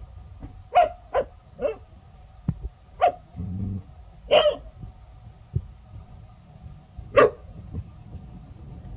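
Dog barking at a snake in six short single barks, spaced irregularly, three close together in the first two seconds, then one every second or three.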